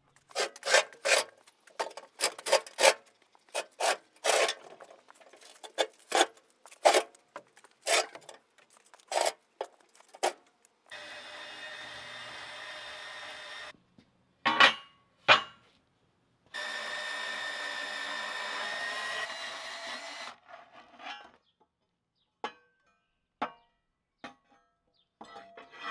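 Cordless portable band saw cutting steel angle iron: two steady cuts of about three seconds each, with two sharp metal knocks between them. Before the cuts comes a run of short, sharp scraping strokes, about one or two a second.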